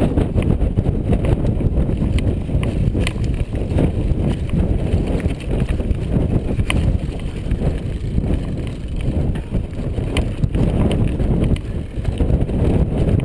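Mountain bike rattling down a rocky track, its tyres running over loose stones, with scattered sharp clicks and knocks as the bike jolts over rocks. A heavy wind rumble on the microphone lies under everything.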